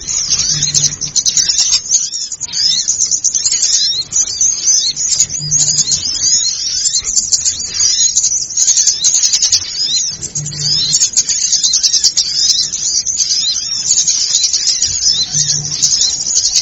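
Bird-lure (pikat) recording of many small birds chirping and twittering in a dense, unbroken, high-pitched chatter, the agitated 'ribut' calling used to draw small birds in. A short low hum recurs about every five seconds beneath it.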